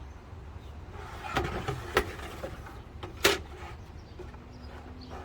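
A few knocks and clunks from computer hardware being handled, the loudest about three seconds in, over a steady low hum.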